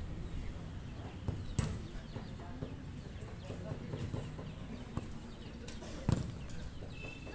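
Futsal ball being kicked: two sharp thuds, one about a second and a half in and a louder one about six seconds in, over faint shouts of players.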